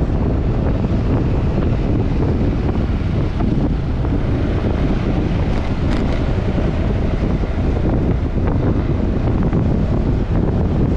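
Steady wind rushing over the microphone of a camera on a moving motor scooter, with a low drone of engine and road noise underneath.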